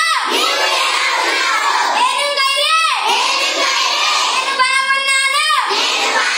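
A class of children singing a song together in unison, in Manipuri. Long held notes come about every two and a half seconds, each ending in a falling slide.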